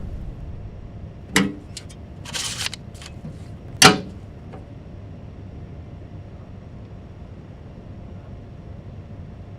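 A sharp knock, a brief scraping rustle, then one hard thump about four seconds in, over a low steady background.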